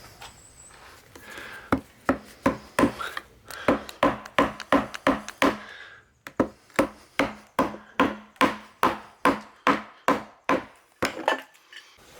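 Mallet blows driving a wide chisel into oak, about three sharp knocks a second, each with a short ring, with a brief pause about halfway through.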